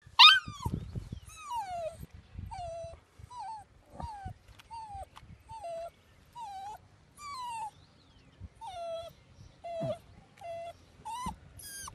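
A puppy stuck fast in tar whimpering and yelping in distress, short falling cries about once a second, the first one the loudest. Low knocks and scraping from the tool working the tar run under the cries.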